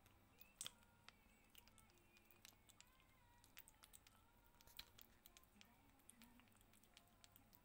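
Kitten licking and lapping a Churu paste treat from a squeeze tube: faint, irregular wet clicks and smacks of its tongue and mouth, a little louder about half a second in and again near the middle.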